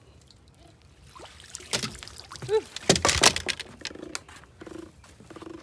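Large catfish splashing and thrashing in a rope landing net as it is hauled up out of the water, with water pouring off and knocks as the net comes onto the wooden dock. The splashing and knocks come in a burst about two to three seconds in, loudest near the middle.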